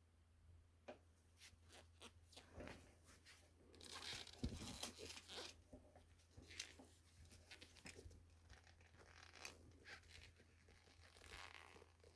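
Faint handling noises from hand work: scattered light clicks and rustling, with a longer scraping rustle about four to five seconds in, over a low steady hum.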